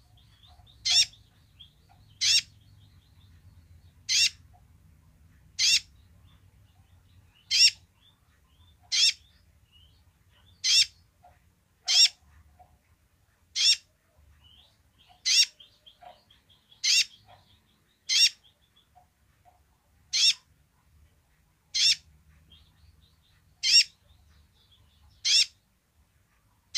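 Male van Hasselt's sunbird (purple-throated sunbird, 'kolibri ninja') giving its basic call: a series of short, sharp, high chips about every one and a half to two seconds, with faint soft twittering between them.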